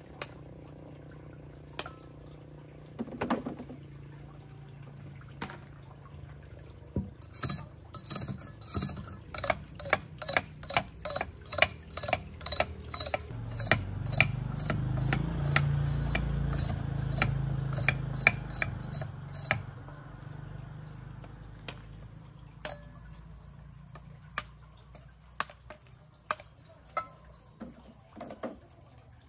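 A knife blade striking and scraping sugarcane stalks: a run of sharp knocks with a metallic ring, about two a second, beginning about a quarter of the way in, with scattered single knocks before and after. A low rumble rises and fades under the middle of the run.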